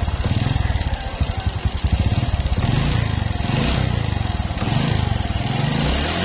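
Honda Karisma 125 single-cylinder four-stroke engine running just after starting, with a rapid tik-tik-tik ticking from the cylinder block and revs rising and falling a few times. The mechanic puts the noise down to a worn-out, oversized cylinder bore, with the piston loose in the block, on an engine that also smokes.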